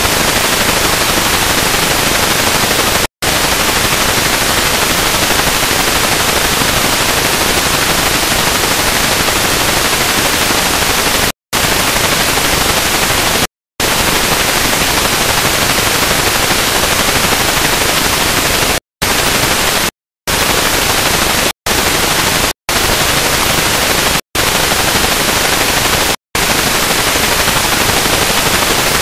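Analog TV set hissing with loud static after the channel's analog transmitter has been switched off, leaving no signal. The hiss cuts out to silence for a moment about nine times, more often in the second half.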